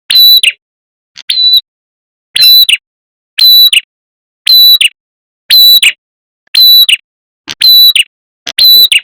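Prenjak kepala merah bird call used as a lure recording: a short, sharp, loud call repeated about once a second, nine times, with the second call weaker.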